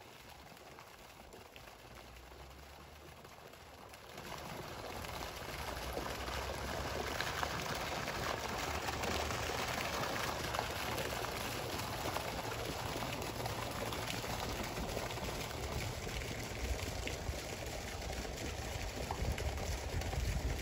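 A jet of water pouring and splashing steadily onto a pond's surface, coming in about four seconds in.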